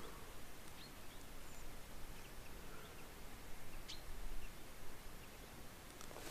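Quiet outdoor ambience: a steady faint hiss with a few short, high bird chirps scattered through it.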